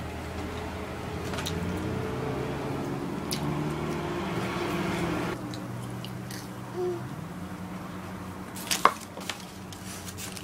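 Room tone with faint background voices. Then, after about five seconds, someone bites into a burger and chews quietly, with a sharp click near the end.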